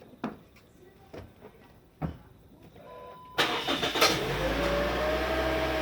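A few light clicks, then a Toyota 70-series Noah's engine cranks and catches at once about three and a half seconds in and runs at a fast idle, with a whine that rises in pitch and then holds steady. This is the abnormal start-up noise that a dealer has twice failed to trace.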